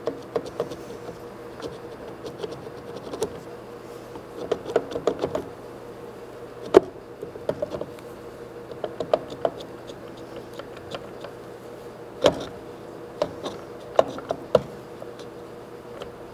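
Scattered metal clicks, taps and knocks as the parts of an old DoAll drill press's power down-feed gear housing are handled and worked loose by hand. The sharpest knock comes about seven seconds in, with a cluster of small clicks shortly before. A steady hum runs underneath.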